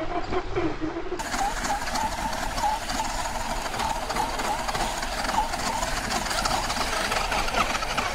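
Electric motor and gears of a Tamiya Grasshopper RC buggy whining as it drives over grass, the pitch wavering up and down with the throttle.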